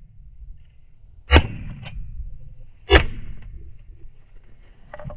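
Two shotgun shots about a second and a half apart, each a sharp crack with a short echoing tail.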